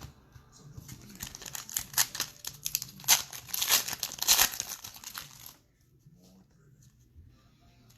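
Crinkling and tearing of a foil trading-card pack wrapper being handled and torn open. It lasts about four and a half seconds, loudest near the middle, then stops suddenly.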